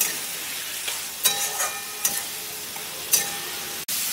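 Metal spatula scraping around a metal kadai as thick masala with crushed fried fish head is stirred, over a steady sizzle. The scrapes come about once a second, each with a brief metallic ring, and the sound cuts out for an instant near the end.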